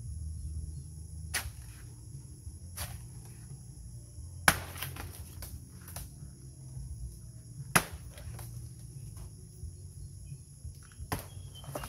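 Wood fire crackling: a handful of sharp, irregular pops, the loudest about four and a half and eight seconds in. Under it runs a steady high insect drone and a low rumble.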